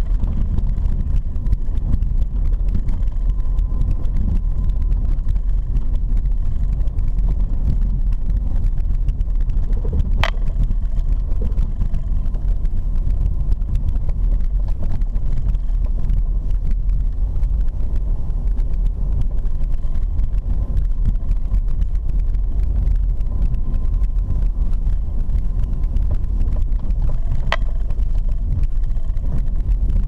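Car driving on a dirt road, heard from inside the cabin: a steady low rumble of engine and tyres. Two short sharp knocks come through, about ten seconds in and again near the end.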